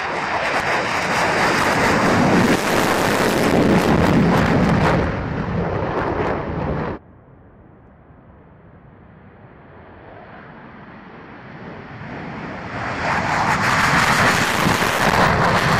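F-15J Eagle's twin turbofan jet engines at take-off power: loud jet noise as the fighter lifts off, cut off abruptly about seven seconds in. Then a second take-off run is heard, its jet noise building from a distant rumble to loud as the F-15J accelerates and climbs out close by, and it cuts off at the very end.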